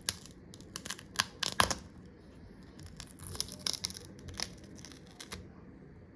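Shattered back glass of an iPhone XR housing being picked and pried out with a tool: a run of sharp snaps, crackles and clicks with some scraping, in two bursts.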